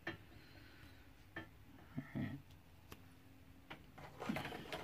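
Sparse light ticks and taps of a diamond painting drill pen pressing resin drills onto the adhesive canvas, a few separate clicks a second or so apart, with a soft rustle near the end.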